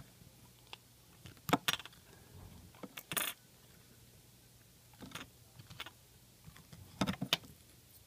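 Light clicks and rattles of a copper desoldering braid and small soldering tools being handled against a circuit board on a wooden work surface, in a few short clusters, the loudest about one and a half and seven seconds in.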